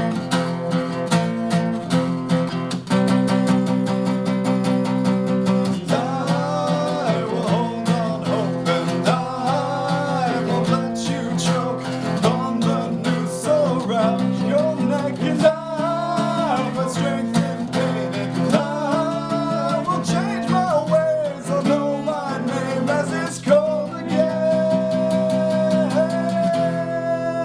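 Acoustic guitar strummed steadily, with a voice singing over it from about six seconds in and holding a long note near the end.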